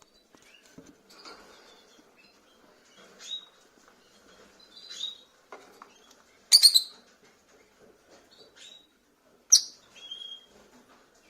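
Rosy-faced lovebirds calling: short chirps and two loud, sharp shrieks about six and nine and a half seconds in, with faint rustling and scratching between them.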